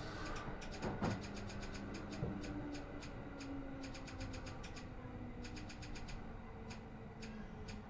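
Inside an E235-1000 series green car at a station stop: a steady low hum of the train's onboard equipment with many faint, irregular clicking ticks, and a dull thump about a second in.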